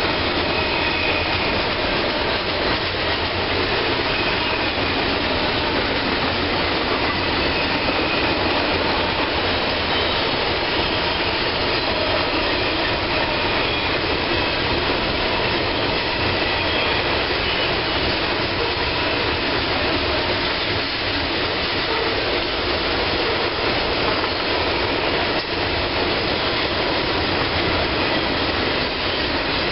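Loaded coal hopper cars and a double-stack container train rolling past together on adjacent tracks: a steady, loud din of steel wheels on rail.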